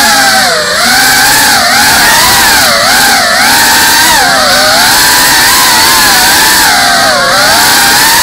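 GEPRC CineLog 35 cinewhoop's brushless motors and propellers whining in flight, loud and close, the pitch dipping and rising over and over as the throttle is worked through tight indoor turns.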